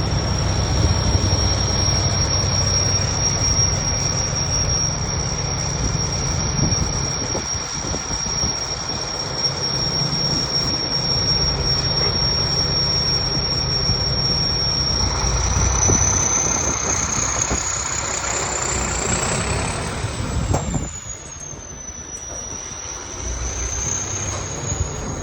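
Tuned, emissions-deleted Mack diesel truck engine running with a high, steady turbocharger whistle over a low rumble. Past the middle the whistle climbs in pitch for a few seconds. It then falls back as the engine drops off, and lifts slightly again near the end.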